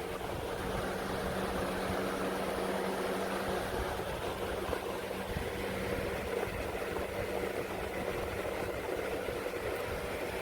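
Hurricane 20-inch box fan running steadily: an even rush of moving air over a steady motor hum.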